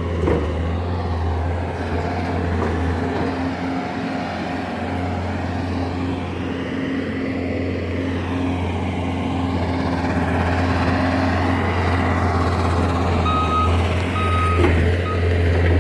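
Skid steer's diesel engine running steadily with a deep, even hum. Its backup alarm beeps a few times near the end.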